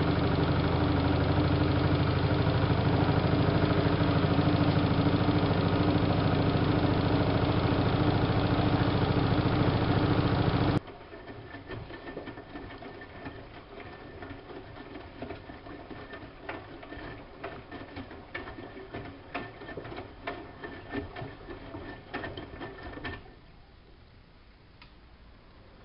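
Siemens Siwamat IQ washing machine's motor running at a steady speed with a loud, even hum, which stops abruptly about eleven seconds in. After that only faint irregular clicks and rattles remain, dropping quieter a few seconds before the end.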